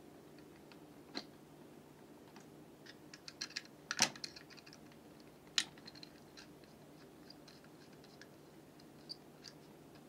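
Small clicks and taps of a screwdriver and wire ends against a plastic wall switch and its brass terminal screws, scattered through, with a quick run of clicks about three to four seconds in, the loudest. A faint steady hum sits underneath.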